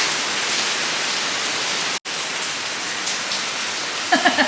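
Heavy rain falling, a steady hiss of rain on surfaces, cut off for an instant about two seconds in and resuming. A voice starts near the end.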